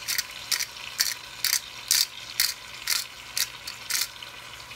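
Pepper mill being twisted to grind black pepper: a short grinding rasp with each twist, about two a second, stopping shortly before the end.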